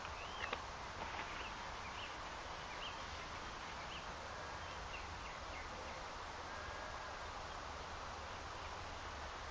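Quiet riverbank ambience: a steady outdoor hiss with faint, scattered small-bird chirps through the first half, and a couple of light clicks near the start.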